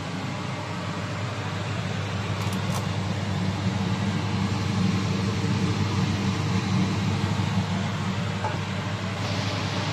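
A steady low machine hum, like a fan or small motor running, with no clear knocks or scrapes over it.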